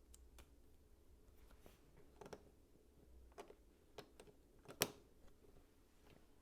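Plastic LEGO pieces being handled and pressed together: scattered small clicks and light clatter, with one sharp snap about three quarters of the way through.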